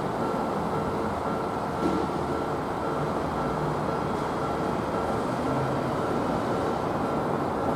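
Steady rail and street traffic noise at a tram-line level crossing, an even rush with no distinct passing or horn.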